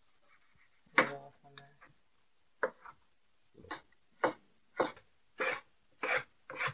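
Chef's knife chopping mango on a wooden cutting board: a string of separate knife strikes on the board, coming about twice a second in the second half.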